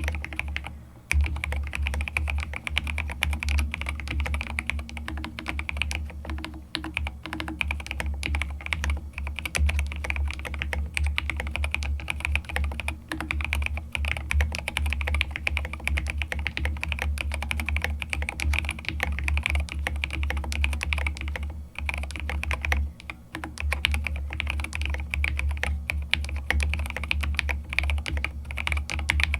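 Continuous typing on a Rama Kara mechanical keyboard with Lavender linear switches and SA-profile keycaps: a fast, steady stream of keystrokes with a deep, thocky sound. The typing pauses briefly about a second in and again about two-thirds of the way through.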